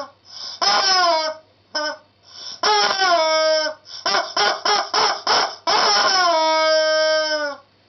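Yellow rubber chicken squeeze toy being squeezed repeatedly: long squawks that dip in pitch then hold steady, with about half a dozen short squawks in quick succession around the middle.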